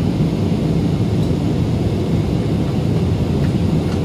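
Steady low rumble of a jet airliner's engines and rushing air, heard inside the passenger cabin.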